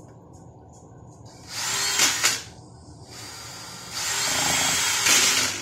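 Cordless DeWalt drill, fitted in place of a KitchenAid stand mixer's dead motor, spinning the mixer's whisk in a steel bowl. It runs in two bursts: a short one about a second and a half in, then a longer one of about a second and a half near the end, each with a high motor whine.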